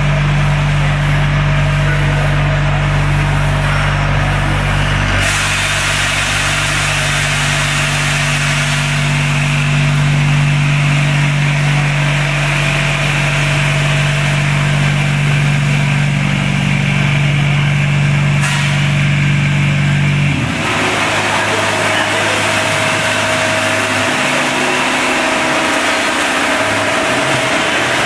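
Automatic vertical form-fill-seal powder packing machine with auger filler running: a steady mechanical hum with strong low motor tones. The sound changes abruptly about five seconds in, and again about twenty seconds in, when the low hum drops away and a lighter, noisier running sound is left.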